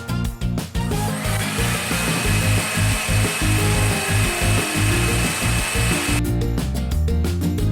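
Background music with a steady beat, with a small electric motor whirring over it: about a second in, a loud steady hiss with a high whine starts, holds at one pitch, and cuts off suddenly about six seconds in.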